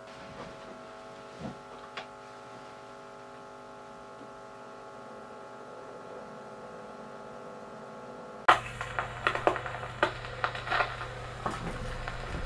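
A few faint clicks over a quiet steady hum, then about two-thirds of the way in the pickup comes down on a spinning 78 rpm shellac disc: a click, then mains hum and the crackle of record surface noise from the lead-in groove, played through a 1930 two-valve amplifier and its loudspeaker.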